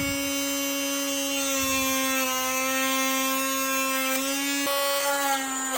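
Small 12V DC motor of a homemade mini drill running at steady speed: a steady whining hum whose pitch sags slightly about two seconds in and again near the end.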